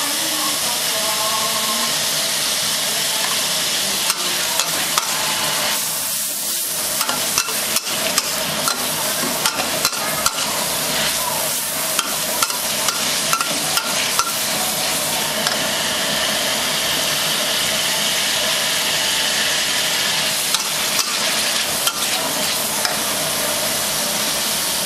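Shredded pork and Artemisia selengensis (luhao) stems sizzling steadily in a stainless steel wok, with a metal spatula clicking and scraping irregularly against the pan as they are stir-fried.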